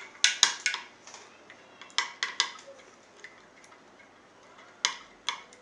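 A metal spoon clinking against glass tumblers of washing solution: a series of sharp clinks, several quick ones in the first second, a few more around two seconds in and two near the end.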